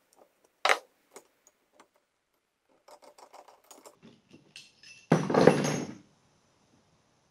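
Metal clicks and clatter from a three-jaw gear puller on an electric motor's rotor shaft as it is worked to get at a bearing: one sharp click under a second in, a quick run of small ticks about three seconds in, then a loud, rough metallic noise lasting about a second around five seconds in.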